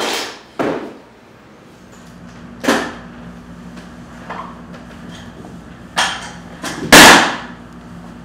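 A series of sharp knocks and bangs, five in all, the loudest about seven seconds in, with a steady low hum coming in about two seconds in.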